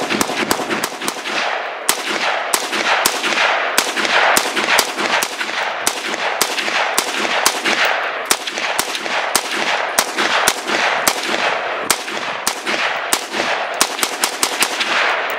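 A 7.62×39 AK-type rifle fired fast in semi-automatic, a long string of sharp shots about two to three a second, each with a short ringing tail.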